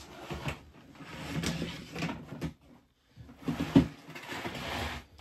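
Loose substrate being scooped and rustled by hand from a container, in two stretches of dry rustling and scraping with a short pause between, and a sharp knock partway through the second.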